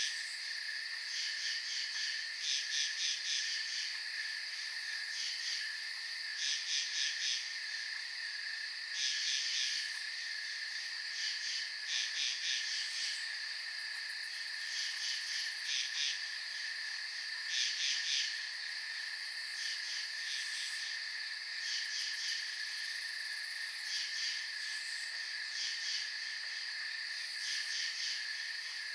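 Night chorus of crickets and other insects: a steady high trill underneath, with louder pulsing chirp bursts every second or two.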